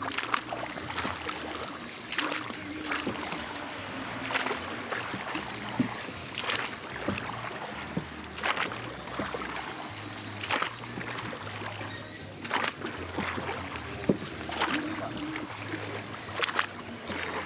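Water splashing and sloshing, with a short surge about every two seconds.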